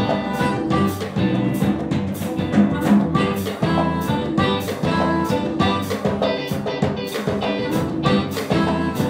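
Live jazz-funk band playing: a harmonica, amplified through a hand-held microphone, carries the melody over a drum kit and band with a steady beat.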